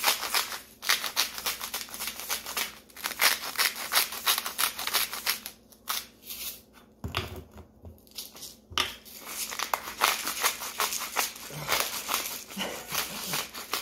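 Hand-twisted spice grinder crunching as its burrs crack the corns, a fast, rough crackle in long runs with two short pauses midway.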